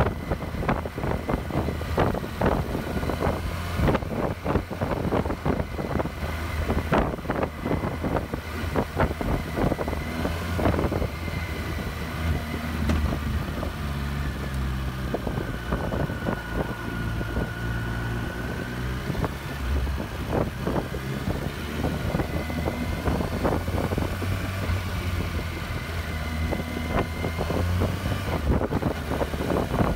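Kawasaki Versys 1000's inline-four engine running at low revs at a slow, steady pace, with gusts of wind buffeting the handlebar-mounted microphone.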